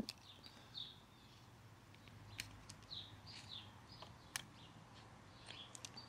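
Near silence: a few faint short bird chirps, with a few faint sharp clicks of a carving knife slicing through a basswood block.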